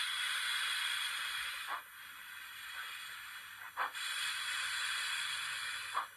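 Recorded steam hiss from the sound decoder of a Rapido OO gauge Hunslet 16-inch 0-6-0 saddle tank model, the function taken for the cylinder drain cocks blowing. It is loud for about two seconds, drops back to a quieter hiss, then comes back loud for another two seconds, with a short click at each change.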